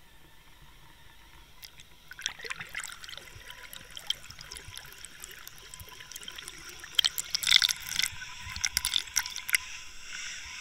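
Water splashing and trickling around an underwater camera as it is pulled up through the pond surface: faint at first, then an irregular crackle of splashes that gets louder and busiest near the end.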